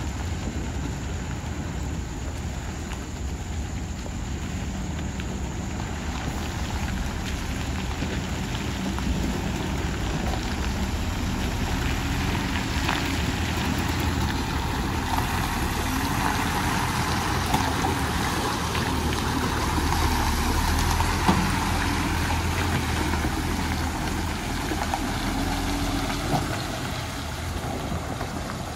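Heavy multi-axle lorry's diesel engine running at crawling speed, a steady low rumble under an even hiss. It grows louder through the middle and eases off near the end.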